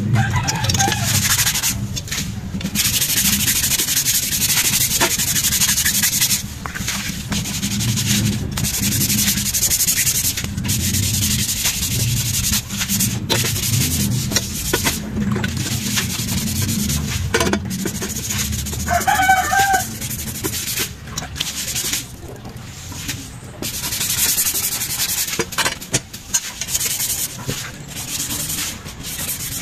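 Abrasive sanding on parts of a mountain bike under restoration: continuous rubbing in long stretches with short breaks.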